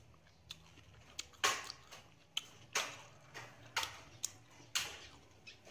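Someone eating the stir-fried duck close to the microphone: about ten short, crisp crunches and clicks at irregular spacing, the loudest about a second and a half in.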